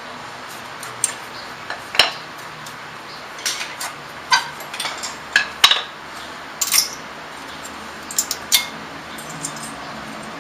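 Irregular metallic clinks and clatter of brake pads, their clips and hand tools being handled and set against each other during a front brake pad change.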